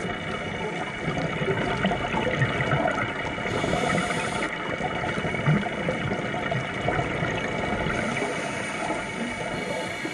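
Underwater ambient noise picked up by a diving camera in its housing: a steady dense hiss with fine crackle, without let-up.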